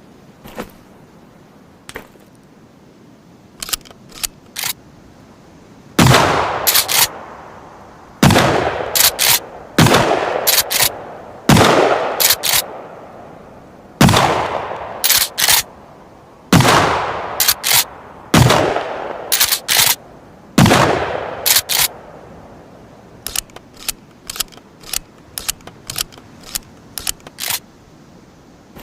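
Remington 870 TAC-14 pump-action shotgun firing eight shots about two seconds apart, each ringing out with a long tail, and each followed by a quick double click as the pump is worked. Scattered sharp metallic clicks of the action being handled come before and after the string of shots.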